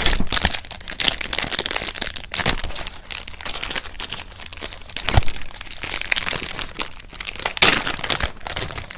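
Plastic packaging crinkling and rustling as it is handled, a continuous run of crackles with a few louder crunches.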